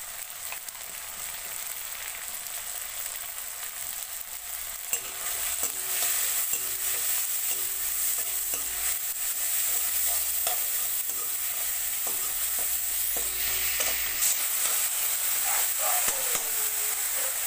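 Onions and tomatoes frying in mustard oil in a steel kadai, sizzling steadily, with a spatula scraping and stirring them against the pan. The sizzling and scraping grow louder about five seconds in, when the stirring starts.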